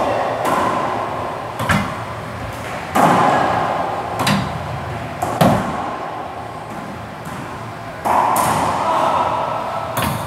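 Racquetball being hit back and forth: a string of sharp, echoing pops from ball on racket and court walls, about one a second, each ringing on in the enclosed court, with a pause of a couple of seconds before a last hit near the end.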